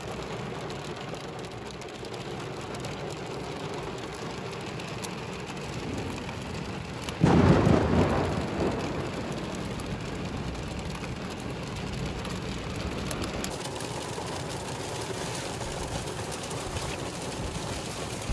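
Heavy rain falling steadily, with a clap of thunder about seven seconds in that rumbles and fades over a second or two.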